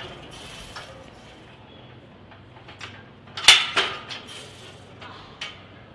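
Metal clanks and clinks from a heavily loaded barbell's plates during a heavy squat. The loudest comes as a pair about three and a half seconds in, and there are lighter clinks before and after.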